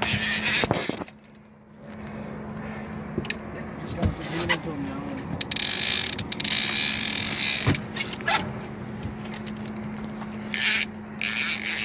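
Boat engine humming steadily at idle while a heavy fishing reel is cranked against a hooked white sturgeon. There are a few sharp clicks and three short bursts of splashing: near the start, in the middle and near the end.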